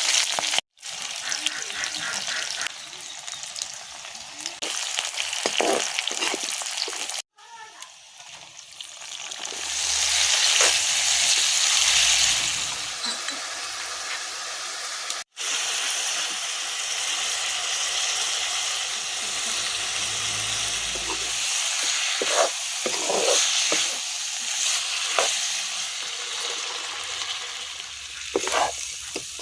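Food frying in hot oil in a pan, a steady sizzle with stirring. The sound breaks off suddenly three times.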